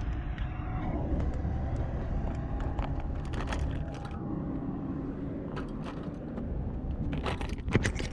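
Kick scooter rolling over street pavement: a steady low rumble from the wheels with scattered clicks and rattles from the scooter. It eases off about halfway through, then a cluster of knocks comes near the end.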